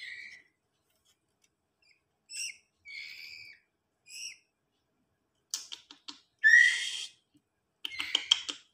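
White-rumped shama (murai batu) fledglings giving short, hoarse begging calls while being hand-fed from a stick: a series of calls, the loudest about six and a half seconds in, mixed with quick runs of sharp clicks.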